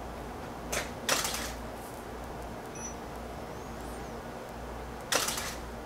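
Camera shutter firing during a photo shoot: a light click and then a louder shutter sound about a second in, and another shutter release near the end, over steady low room hum.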